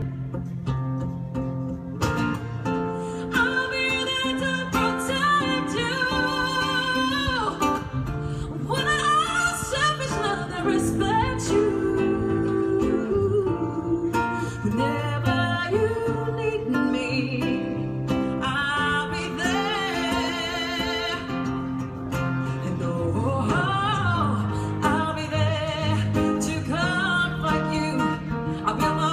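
Live music from a performing duo: a voice singing over instrumental accompaniment, with a steady bass line.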